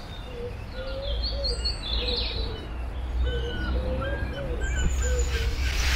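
Birds singing and calling in the trees: a run of short, repeated lower notes mixed with higher chirps, over a steady low rumble.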